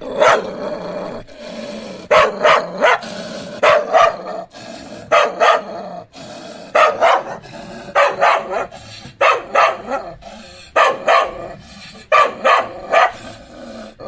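A dog barking again and again, in short runs of two or three barks about every second and a half.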